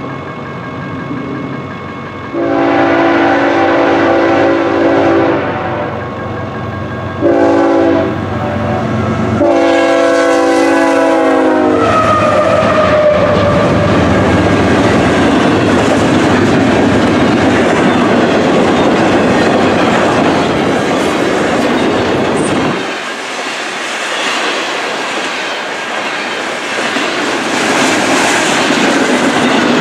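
BNSF freight locomotive's air horn sounding three blasts, long, short, long, as it approaches. Its sound drops in pitch as it passes, about twelve seconds in. Double-stack container cars then roll by with steady wheel noise and clickety-clack on the rail joints.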